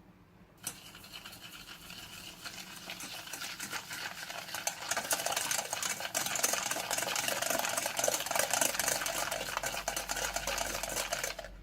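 Eggs and sugar being beaten together in a bowl: a fast run of scraping, swishing strokes that starts about half a second in and grows louder over the first few seconds.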